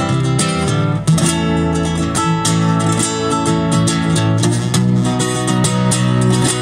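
Acoustic guitar strummed with no singing, a steady run of chords that change about a second in and again a little past four seconds.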